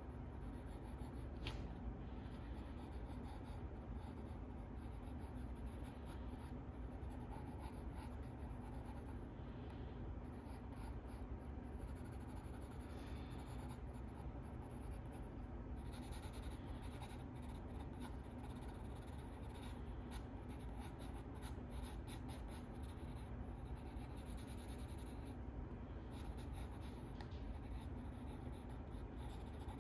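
Drawing strokes scratching across sketchbook paper, in stop-start runs with short pauses between them.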